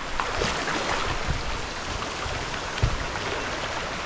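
River water rushing steadily over rocks, a continuous hiss of flowing water, with a few soft low thumps, the loudest about three seconds in.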